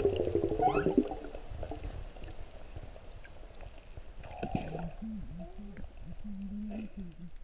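Humpback whale song heard underwater: a falling moan in the first second, then after a quieter stretch a short higher call and a run of low, wavering moans near the end, over a faint hiss of water.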